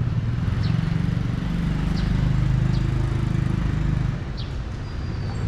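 A motorcycle engine running close by, a steady low hum that swells just after the start and eases off about four seconds in.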